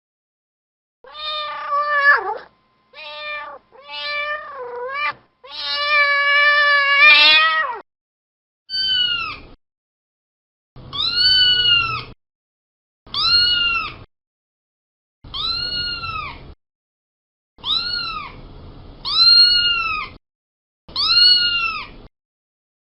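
Domestic cat meowing in a series of separate meows. The first few are lower and varied, ending in one long drawn-out meow. Then come about seven higher, rising-and-falling meows, each about a second long and roughly two seconds apart.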